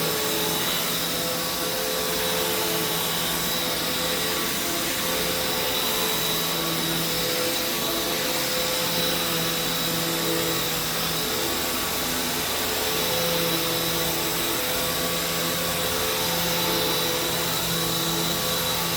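Hoover Taskvac commercial bagged upright vacuum cleaner running steadily as it is pushed over carpet: a constant rushing hiss with a high motor whine.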